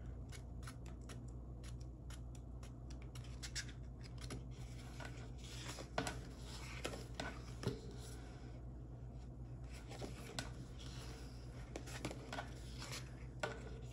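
Pages of a sticker book being flipped and handled: light paper rustling with scattered soft clicks and taps, the sharpest about six seconds in.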